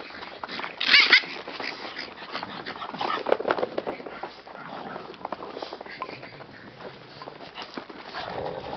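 Puppies playing rough: paws scrabbling and patting on a plastic sheet, with a short high-pitched cry about a second in and rougher vocal noises a couple of seconds later.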